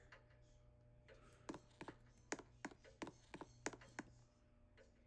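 A run of faint, sharp, irregular clicks, about eight over two and a half seconds, over a low steady hum that stops about four seconds in.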